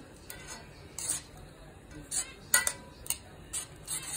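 Metal tongs clinking and scraping against a stainless steel pan while stirring vermicelli in water: about seven irregular strokes, the loudest about two and a half seconds in.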